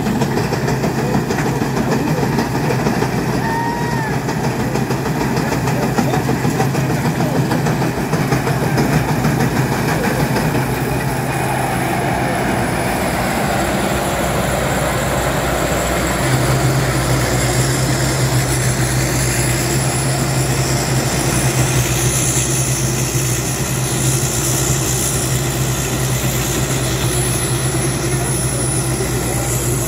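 Rice combine harvester's diesel engine and threshing gear running steadily as it cuts and threshes rice, a continuous mechanical hum. A thin high whine joins about a third of the way in.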